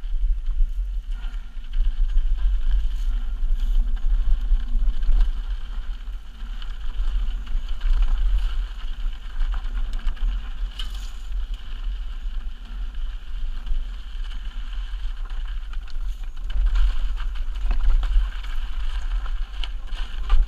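Wind buffeting on an action camera's microphone as a mountain bike descends a rocky dirt trail, with the bike rattling and the tyres crunching over gravel. The buffeting makes a heavy steady rumble, broken by scattered clicks and knocks.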